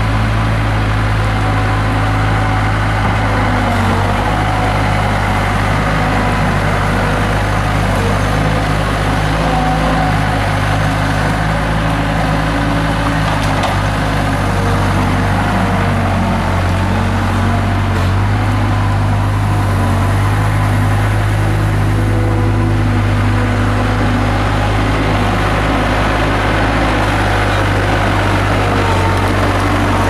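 Bobcat skid-steer loader's diesel engine running steadily, its pitch shifting slightly a few times as the machine works.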